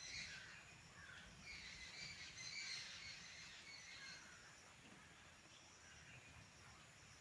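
Near silence with faint, scattered bird chirps, most of them in the first few seconds.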